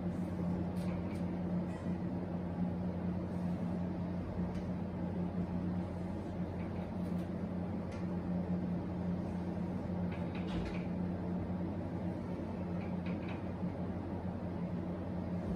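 Steady low room hum, with faint scattered taps and scrapes of a marker and ruler on a whiteboard as lines are ruled.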